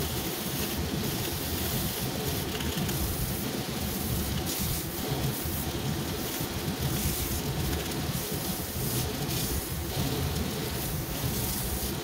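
Bench grinder fitted with a 200-grit sanding belt, running steadily with a low motor hum while the belt grinds down the edge of a new rubber clog sole, the grinding noise surging unevenly as the sole is pressed and moved along the belt.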